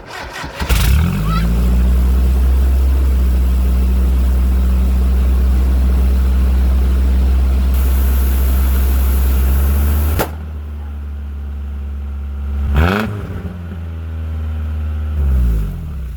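Truck engine running steadily through a straight-piped exhaust, blowing into a glitter-filled balloon fitted over the tailpipe. About ten seconds in the sound drops suddenly, and a short sharp burst follows a couple of seconds later.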